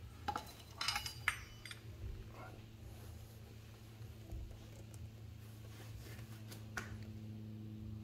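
A few light metallic clinks and knocks as the freed intake manifold and its metal parts are handled, most of them in the first two seconds and one more near the end, over a faint steady low hum.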